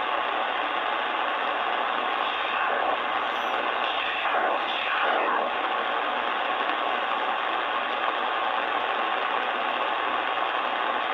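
Shortwave band noise from a Sangean ATS-909X2 receiver in upper-sideband mode as the dial is tuned up through the 4.3 MHz range: a steady, even hiss, with faint signals sliding past about four to five seconds in.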